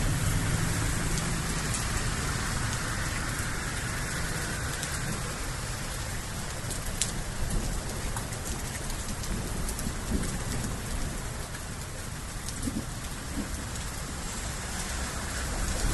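Steady hiss of noise like falling rain, with a few faint ticks and a low rumble that fades in the first few seconds.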